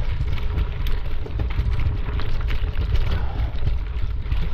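Wind buffeting the microphone as an unsteady low rumble, with scattered faint knocks and scuffs from movement along the trail.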